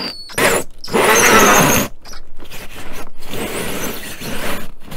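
Cordless drill driving a 3-inch hole saw up through an RV ceiling's vinyl, fabric and foam layers, running in several bursts with short pauses between them. The loudest run, in the first half, carries a wavering high whine.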